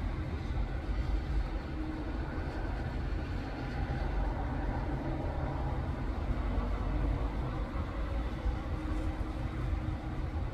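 Steady traffic rumble of cars, vans and a bus with tyre hiss on a rain-soaked road.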